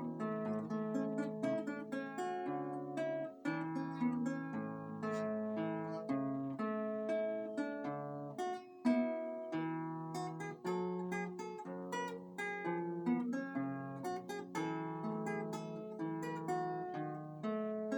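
Acoustic guitar played solo: a plucked melody over a line of bass notes, in a steady flow of single notes and chords.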